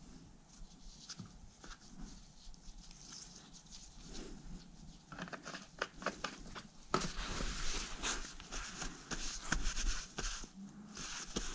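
Small handling clicks and taps at first, then, from about seven seconds in, steady rubbing and rustling of a blue shop towel and nitrile-gloved hands wiping down a CV axle.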